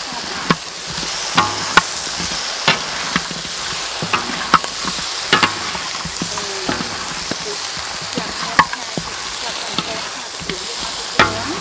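Chicken wings in sticky chili sauce sizzling in a large metal wok, with a metal spatula knocking and scraping against the wok in irregular clicks as they are tossed. There is a louder knock near the end.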